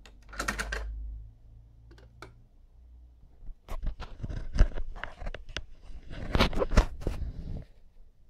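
Plastic clicks and rattling of a cassette being taken out of a cassette deck's open door in the first second, then two light clicks. From about three and a half seconds in, a long run of close knocks, rubs and clicks of handling.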